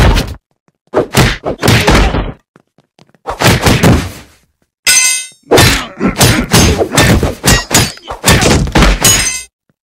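Cartoon fight sound effects: clusters of rapid punches, whacks and thuds, with a brief ringing sound about five seconds in and a dense run of blows after it.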